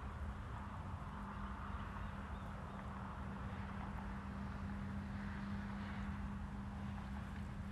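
Steady outdoor ambience: a low hum holding one even pitch, with a soft hiss above it.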